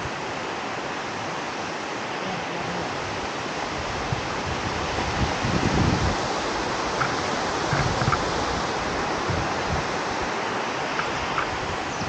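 Steady rushing noise, like wind over a microphone or running water, with a few low thuds around the middle.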